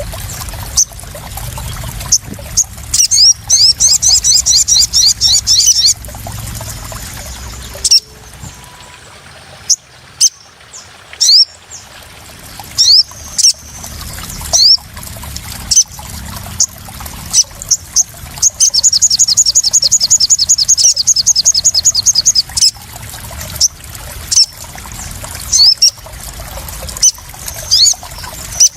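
Sogon (crimson sunbird) song: scattered sharp, high single chirps and two long, rapid trills of repeated falling notes, one starting about 3 seconds in and one about 19 seconds in, over trickling, splashing water.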